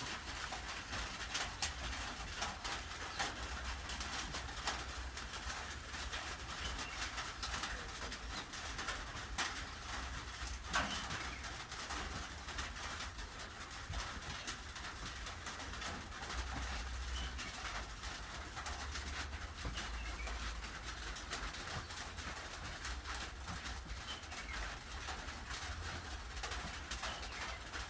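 Doves cooing over a steady patter of rain, with scattered drop ticks throughout.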